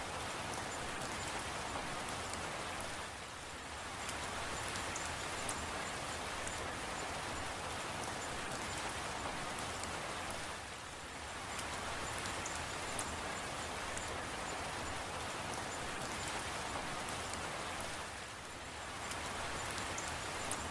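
Steady rain falling, a dense hiss of drops with small individual drop ticks. The level dips briefly three times, about every seven and a half seconds.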